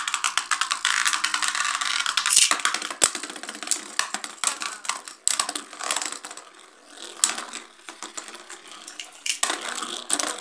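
Two Beyblade spinning tops, Victory Valtryek and Xeno Xcalius, whirring and scraping around a plastic basin, with rapid rattling clicks as they clash. The sound eases off about two-thirds of the way through as the tops slow, then picks up again in a burst of clatter near the end.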